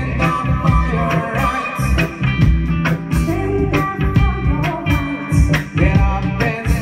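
Live roots reggae band playing: a woman's lead vocal over electric bass, electric guitar and a drum kit, with drum hits on a steady beat.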